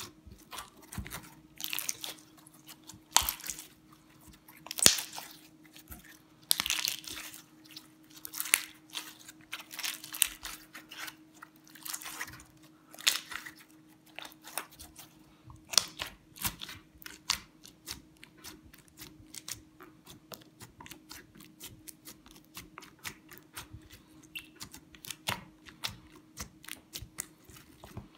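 Slime being worked by hand, giving a run of crackling pops and clicks: longer noisy strokes in the first half, then quicker, denser clicking. A faint steady hum runs underneath.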